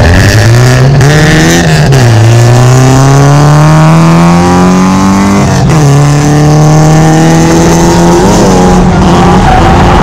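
Drift car engine under hard acceleration, loud and close. Its pitch climbs, falls back sharply twice (about two seconds in and again past the middle), then holds high with a brief dip near the end.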